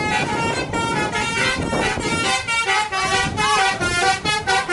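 Bus 'basuri' telolet musical air horn playing a quick melody of short pitched toots, the notes changing several times a second, over street noise.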